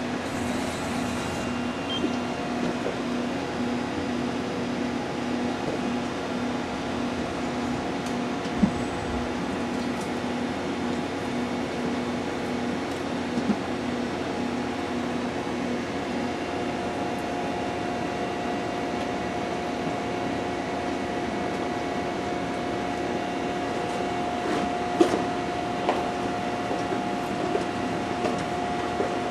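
Machine tool running steadily, a continuous mechanical hum. A pulsing tone gives way about halfway through to a steady higher-pitched tone, with a few faint clicks.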